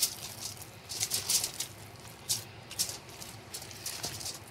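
Wet, sticky minced-chicken mixture squelching and slapping in a bowl as it is mixed, in irregular short bursts.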